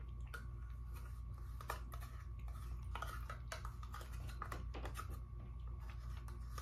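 A spoon clicking and scraping in a small clear plastic cup while eating, with light chewing, in scattered short clicks over a steady low hum.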